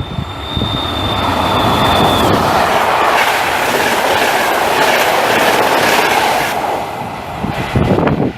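A train passing at speed through the station, its wheels running loud on the rails, with a thin high steady tone over the first two seconds. The sound builds, holds for several seconds and eases toward the end.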